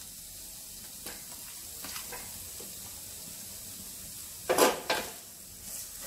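Onion and spice masala sizzling steadily in a nonstick frying pan. About four and a half seconds in, a wooden spatula scrapes loudly across the pan twice as stirring begins.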